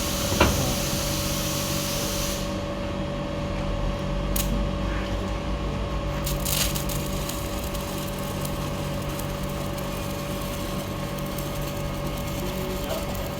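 Stick (SMAW) welding arc crackling and hissing steadily, with a steady electrical hum underneath and a sharp click about half a second in.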